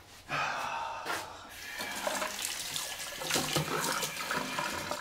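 Bathroom sink faucet running, with water splashing as hands are washed under it. It starts about a third of a second in.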